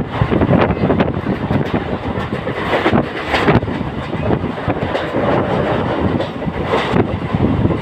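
Train running on rails, its wheels clattering irregularly over the track.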